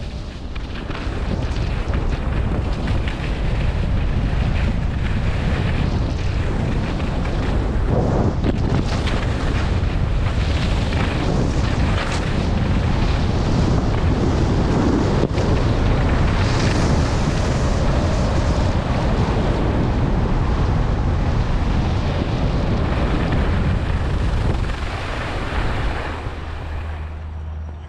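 Wind buffeting the camera microphone while skiing downhill at speed, a heavy rumble with skis hissing and scraping on packed, groomed snow. It eases off near the end as the skier slows on the flat.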